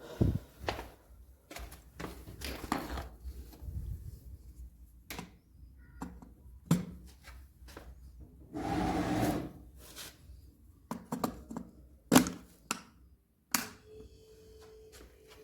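Scattered knocks, clicks and taps of tools and small parts being handled during refrigerator compressor relay work, with a longer rustling scrape about nine seconds in. A faint steady hum starts near the end.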